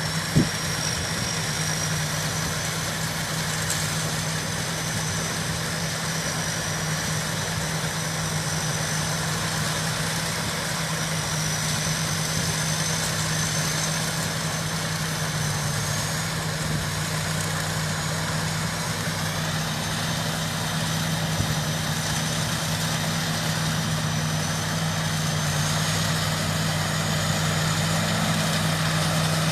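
Combine harvester engine running steadily, with a high whine above it that wavers slightly in pitch. A single sharp click sounds about half a second in.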